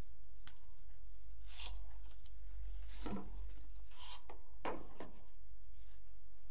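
A hardcover book being handled: a few brief rustles and rubs of its cover and paper pages as it is turned over and opened, the sharpest about four seconds in, over a steady low hum.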